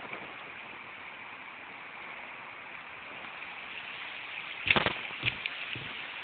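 Steady outdoor hiss, then from about four and a half seconds in a few heavy thuds of footsteps on a woodland dirt path, the first the loudest.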